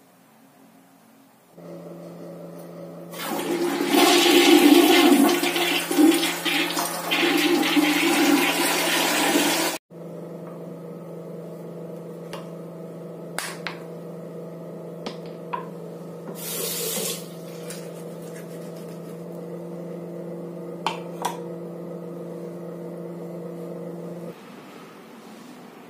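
Toilet flushing: a loud rush of water lasting about six seconds over a steady hum. After it, a few light clicks and knocks of small bathroom items being handled, and a brief hiss of water.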